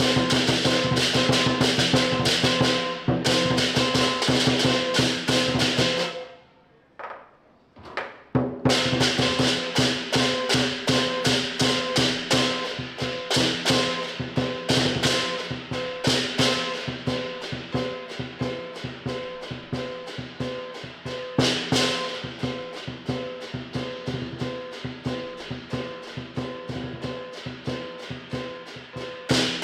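Southern lion dance percussion band playing: quick beats on the big drum and clashing cymbals over a steady ringing gong. It breaks off about six seconds in, then starts up again.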